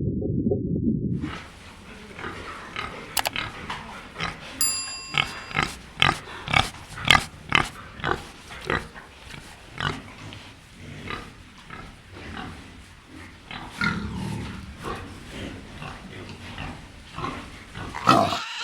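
A low rumble that cuts off about a second in, then an animal's short, abrupt calls repeated irregularly, several close together at times. A brief ringing tone sounds about five seconds in.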